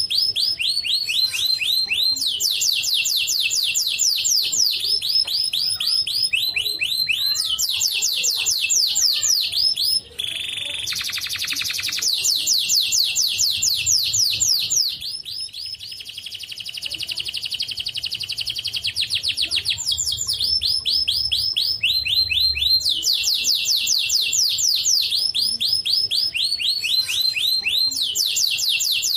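White canary singing a long unbroken song of rapid, high trilled rolls of repeated notes. About ten seconds in it switches to a buzzier rattling phrase, then a smoother steady trill, before returning to the rapid rolls.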